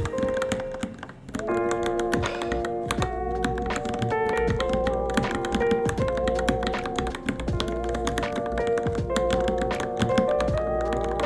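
Rapid, irregular keystrokes clicking on a Varmilo Minilo mechanical keyboard during typing practice, over melodic background music.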